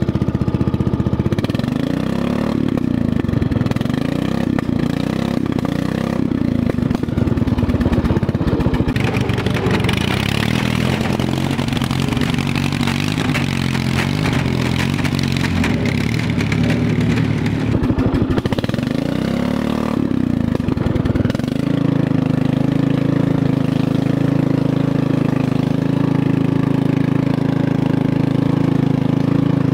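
Briggs & Stratton 12 hp single-cylinder lawn tractor engine running through an open exhaust manifold, a sound the owner calls wimpy. It revs up and back down several times, then holds a steady high-speed run through the last third.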